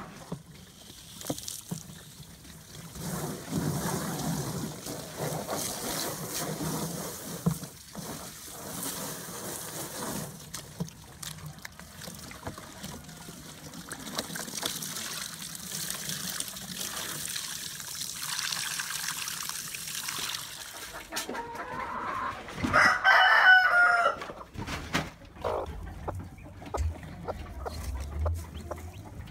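Chickens clucking over a steady hiss of rain. A rooster crows once, loudly, late on.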